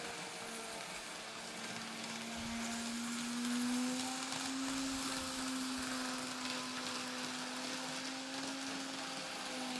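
Kato N-scale AC4400CW model locomotive's electric motor whirring steadily as it pulls a freight train round the layout, over a light hiss of wheels on track. The hum rises a little in pitch about three seconds in.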